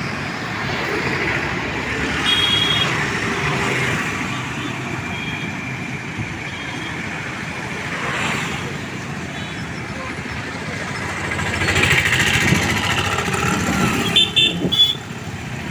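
Road traffic passing: motor vehicles going by steadily, with a short horn toot about two seconds in and several quick toots near the end.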